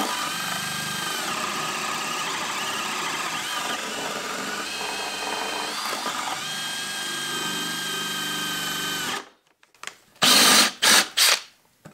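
Makita 18V brushless drill driver boring a 1-inch spade bit into a wooden post, running steadily under load with the bit cutting through the wood, then stopping about nine seconds in. A few loud, short clattering bursts follow about a second later.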